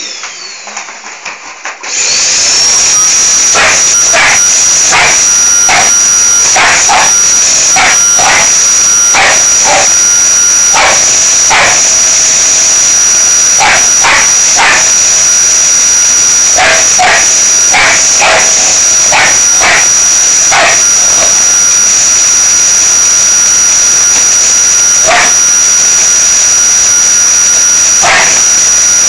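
A loud motor starts about two seconds in, its whine rising and then holding steady. Over it a dog barks again and again, many short barks up to about twenty seconds in and a couple more near the end.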